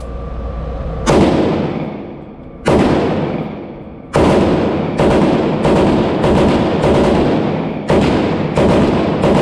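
AR-15 rifle with a Strike Industries Cookie Cutter compensator, fired on a Fostech Echo binary trigger: about ten sharp shots, each with a lingering echo. The first three come about a second and a half apart, then the rest follow faster, roughly every half to two-thirds of a second. The rifle cycles the magazine without a stoppage.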